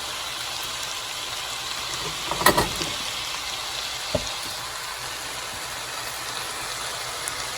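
A pot of oiled, layered rice sizzling and steaming with a steady hiss as it cooks, with one short knock about two and a half seconds in.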